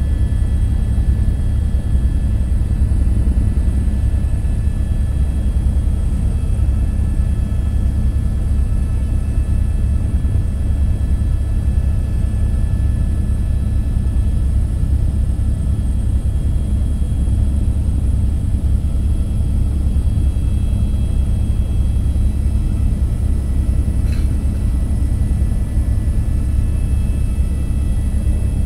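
Helicopter cabin noise in flight: a loud, steady low drone of rotor and engine, with thin steady high whines above it, heard from inside the cabin.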